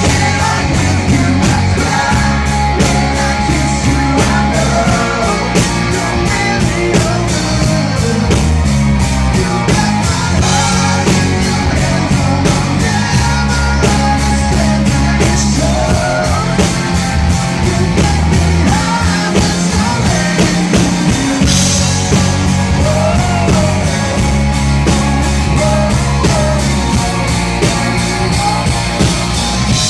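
Live rock band playing a song: drum kit keeping a steady beat under bass and electric guitar.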